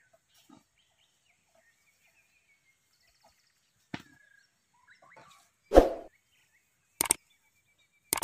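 Faint bird chirps, then a few sharp knocks, the loudest two about six and seven seconds in.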